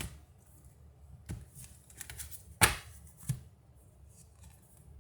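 Reading cards being handled: a few sharp separate taps and flicks of card against card or table, the loudest about two and a half seconds in.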